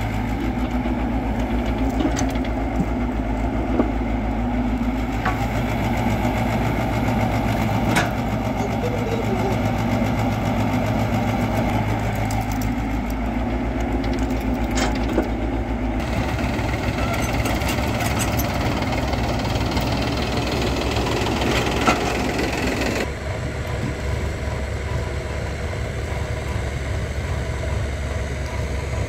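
Diesel engines running steadily: an L&T-Komatsu PC crawler excavator at work and a Mahindra tractor idling close by. There are a few sharp knocks along the way. The engine sound shifts abruptly about halfway through and again about three-quarters of the way through.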